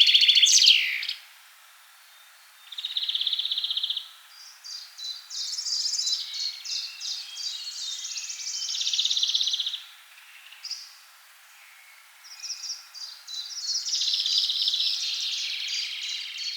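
Forest songbird song: varied phrases of fast trills and rapidly repeated notes, broken by two pauses of a second or two.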